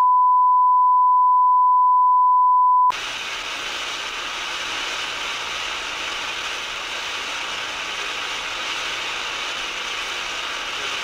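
Steady high-pitched test tone of a television colour-bars signal. About three seconds in it cuts off abruptly and gives way to a steady hiss of analogue TV static.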